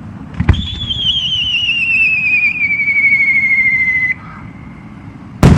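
A whistling firework shell goes up: a sharp pop at launch about half a second in, then a loud wavering whistle that falls steadily in pitch for about three and a half seconds and cuts off, followed by the shell bursting with a loud bang near the end.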